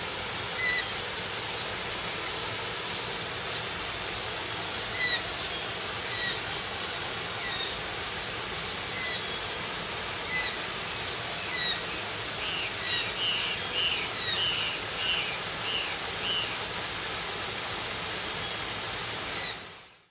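Birds giving short, repeated chirps, with a quicker run of calls around the middle, over a steady high-pitched hiss; the sound fades out at the end.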